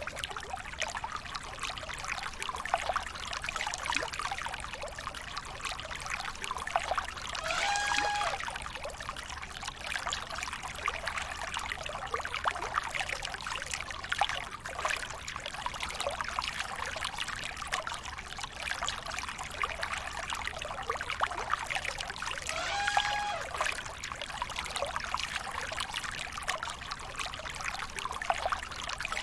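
River water splashing and trickling continuously. Two short, high-pitched calls cut through, about eight seconds in and again about three-quarters of the way through.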